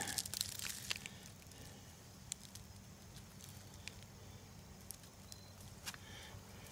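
Faint, scattered crackling and clicks of dry leaf litter shifting underfoot, with a short high chirp about five seconds in.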